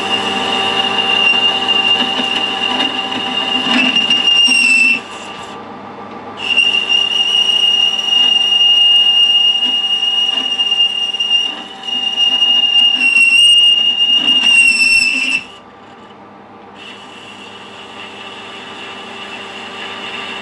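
Metal lathe roughing out a bore, the boring tool cutting with a steady high-pitched squeal over the running lathe. The squeal breaks off for about a second around five seconds in, dips near twelve seconds, and stops about fifteen seconds in, leaving only the lathe running.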